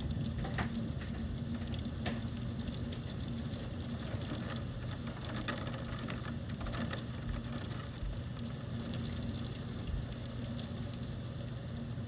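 Heavy rain, an even hiss with scattered sharp drop impacts, over a steady low hum.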